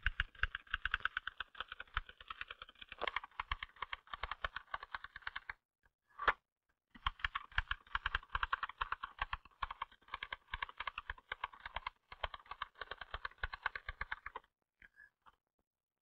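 Typewriter being typed on at speed: a fast, even run of keystrokes clacking, with a short break near the middle, then a second long run.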